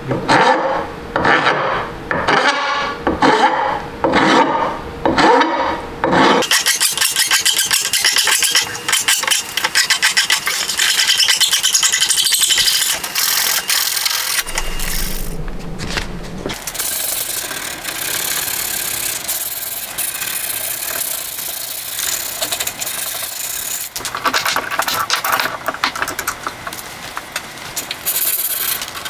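Hand file rasping across a steel hatchet edge to reprofile the bevel, at first in separate strokes about two a second, then after about six seconds in dense, continuous rubbing and scraping.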